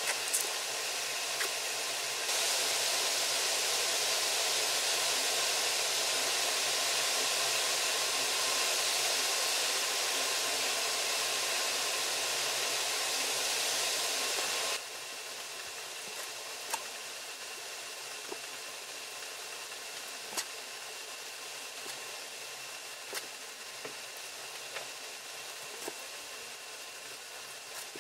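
A steady hiss with a few faint light ticks. It gets louder about two seconds in and drops abruptly about fifteen seconds in.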